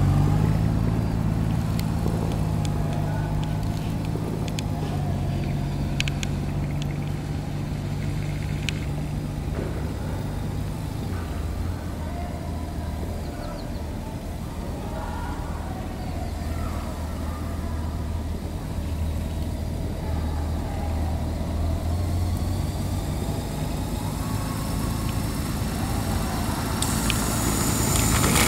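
Honda Gold Wing's flat-six engine running at low revs as the touring motorcycle is ridden slowly in circles on a dirt field, a steady low hum whose pitch drops a step about eleven seconds in. A rough crunching noise rises near the end.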